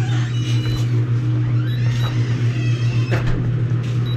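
Young Great Pyrenees puppy whimpering in several short, high-pitched cries, some rising in pitch, over a steady low hum.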